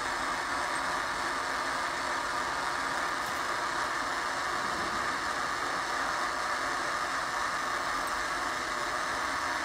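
Two roll-up side curtain gear motors running steadily under power, an even mechanical hum with several steady tones.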